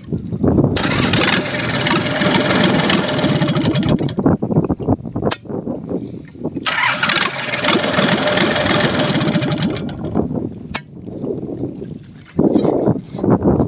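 Yanmar 3T84 three-cylinder diesel boat engine running and revved up twice, each burst lasting about three seconds before it drops back to a lower run, showing how quickly it responds to the throttle.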